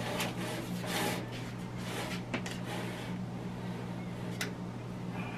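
Foil baking pan scraping and clicking lightly as it is slid onto the wire rack of a countertop air fryer oven, over a steady low hum.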